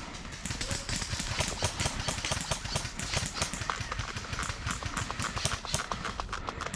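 Running footsteps of an airsoft player on hard, uneven ground, a quick uneven patter of thuds mixed with the click and rattle of carried gear.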